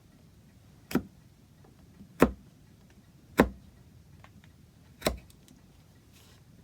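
Four sharp knocks on wood, about a second apart, from hand-tool work cutting a pine patch to fit into the clock case.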